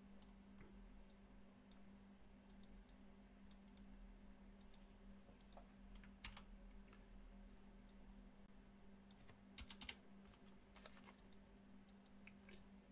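Faint computer keyboard typing and clicks: scattered single keystrokes with a quick cluster a little before ten seconds in, over a steady low hum.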